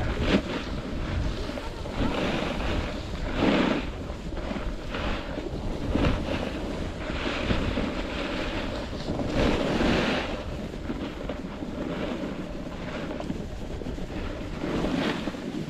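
Wind rushing over the microphone while skiing downhill, with the swish of skis turning through soft, untracked snow swelling every few seconds.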